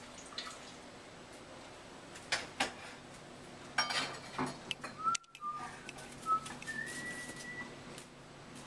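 A few light clicks and knocks, then whistling: three short notes at about the same pitch, followed by a higher note held for nearly a second.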